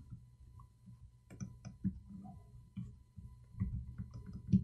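Irregular light clicks and taps of a metal ruler being shifted on paper and a pen drawing along it, with a louder tap near the end.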